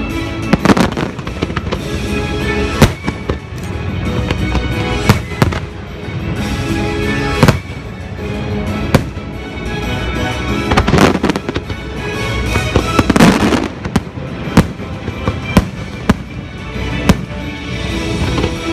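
Aerial fireworks bursting over a lagoon: a dozen or more sharp bangs at irregular intervals. The show's music plays loudly underneath.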